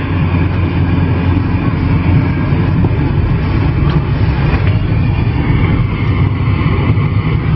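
Steady engine and road rumble inside a moving car, with an even hiss over it.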